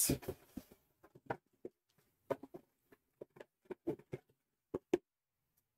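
Light, irregular taps and scrapes of a cardboard box and its molded paper-pulp insert being handled and shifted, dying away about five seconds in.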